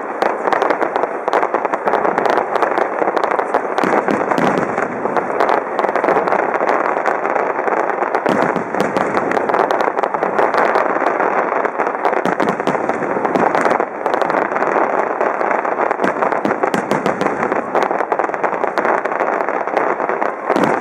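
Fireworks grand finale: a dense, unbroken barrage of shell bursts and crackle, the reports so rapid they run into one another like machine-gun fire.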